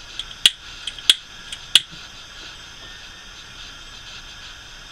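A handheld lighter clicked about six times in quick succession in the first two seconds without catching, then nothing but a faint steady hiss.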